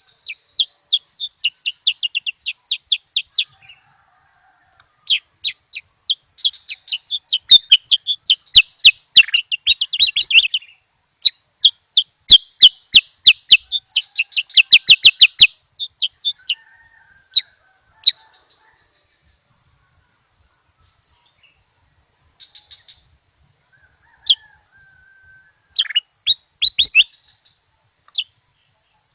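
Bulbul song: rapid runs of short, sharp, high chirping notes, several a second, coming in bursts, with a sparser stretch in the second half before a last flurry near the end.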